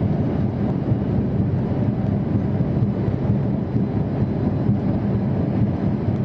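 Steady engine drone and road noise inside the cab of a MAN TGA 26.430 lorry cruising at motorway speed, its six-cylinder diesel running evenly.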